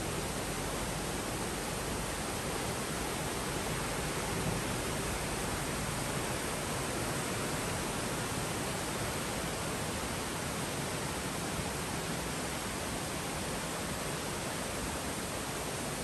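Steady, even rush of a woodland stream running over rocks.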